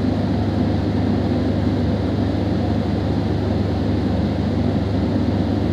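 A steady low machine hum, unchanging throughout, with no separate strokes or knocks.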